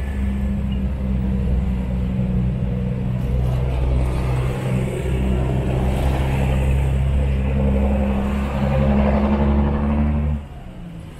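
A motor vehicle's engine idling close by, a steady low hum at an unchanging pitch over street noise, cutting off abruptly near the end.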